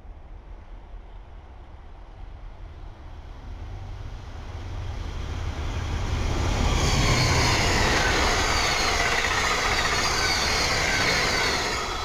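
A train approaching and passing close by: steel wheels on rail growing louder over several seconds, then a loud steady pass of rail noise for about five seconds, starting to fade right at the end.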